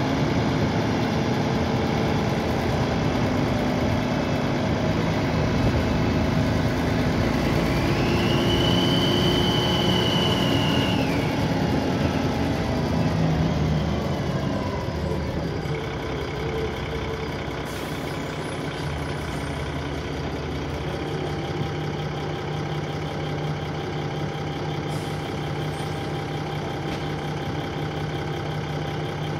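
Dennis Trident 2 double-decker bus heard from on board: the engine pulls under load with a high turbocharger whine that rises, holds and drops away about eleven seconds in. From about fifteen seconds the engine settles to a steadier, quieter idle.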